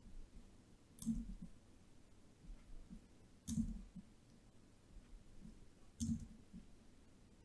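Three faint clicks about two and a half seconds apart, each with a soft low thud: computer mouse clicks.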